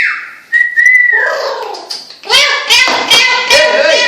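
A parrot whistling a few rising and falling notes, then, from about two seconds in, a run of rapid, speech-like chattering calls.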